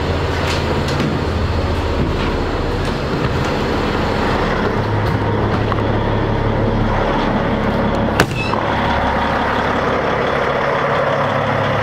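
A vehicle engine running steadily with a low hum, and one sharp knock about eight seconds in.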